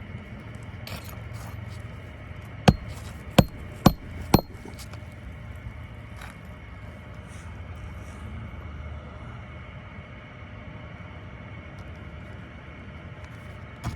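Hammer striking four times in quick succession, about half a second apart, during asphalt shingle repair, with a light scrape just before. A low steady rumble runs underneath.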